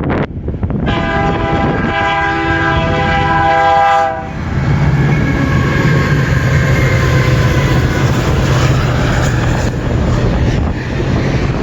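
CN freight locomotive's air horn sounding one long chord blast, starting about a second in and lasting about three seconds, then the train passing close with a steady low diesel engine drone.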